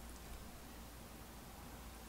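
Faint room tone: a steady low hum and soft hiss, with no distinct sound.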